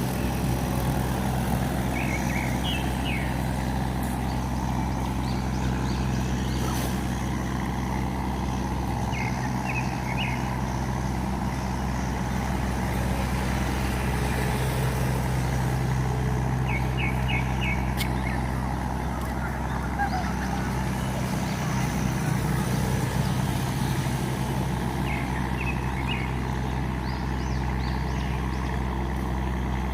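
Tugboat's diesel engine running steadily, a constant low drone as it pushes upstream against the current. A small bird chirps in short runs of three or four quick notes several times over it.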